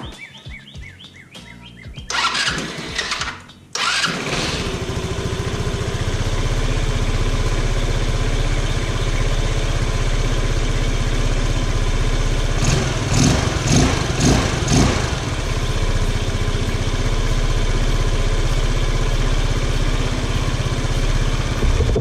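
150cc GY6 scooter's single-cylinder four-stroke engine cranks for about a second and a half, then starts easily and settles into a steady idle. Midway through it revs up four times in quick succession and drops straight back to idle. It is running properly on a replacement carburetor float that cured its flooding.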